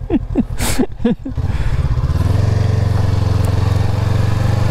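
Motorcycle engine growing louder about a second and a half in as the bike pulls away, then running steadily under way with wind rush on a bike-mounted microphone. A voice trails off at the start.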